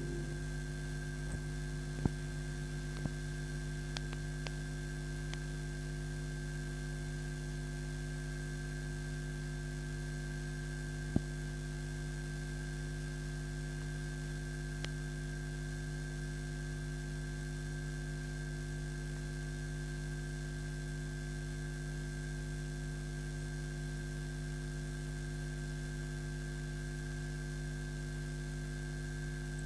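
Steady electrical mains hum with several overtones over a light hiss, with a few faint clicks in the first seconds and one sharper click about eleven seconds in.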